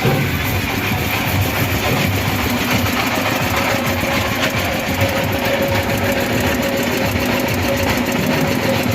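A motor running steadily with a rough low rumble; a steady hum joins in a few seconds in and holds.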